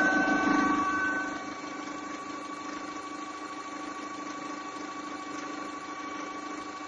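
Opel Astra G's 1.6 16-valve X16XEL petrol engine idling, with a steady humming whine from under the bonnet that the owner suspects is the water pump. It is louder for about the first second and a half, then settles to a quieter, even hum.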